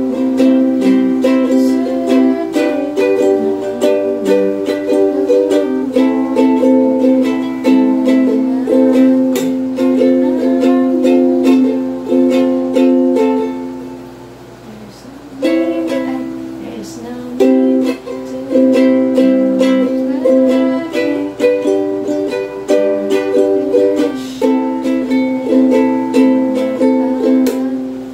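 Muslady 21-inch soprano ukulele strummed in a steady rhythm through a series of chords. The strumming dies away for a moment about halfway through, then starts again.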